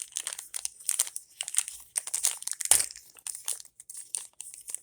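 Small plastic packet from a toy mini-figure capsule crinkling and crackling as it is handled and opened by hand, in many quick irregular crackles, the loudest a little under three seconds in.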